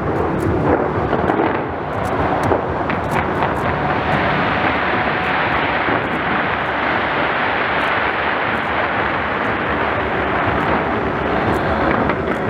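Dense fireworks barrage: a continuous rumbling roar of many overlapping shell bursts, with faint crackling throughout.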